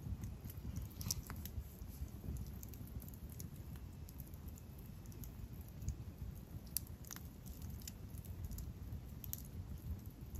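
Wood campfire crackling, with scattered sharp pops at irregular intervals over a low steady rumble.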